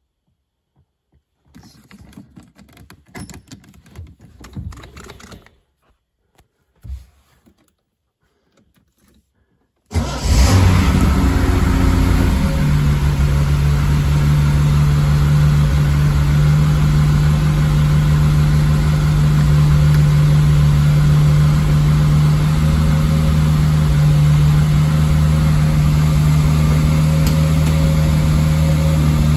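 1972 Triumph TR6's straight-six engine starting from cold: after faint rustles and clicks, it fires abruptly about ten seconds in, runs up briefly, and settles within a few seconds into a steady fast idle that holds to the end.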